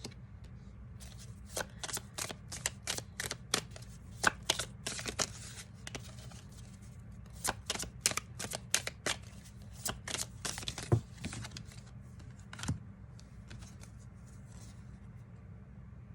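Tarot cards being shuffled and handled: a quick, uneven run of crisp card clicks and slaps that thins out about thirteen seconds in, over a steady low hum.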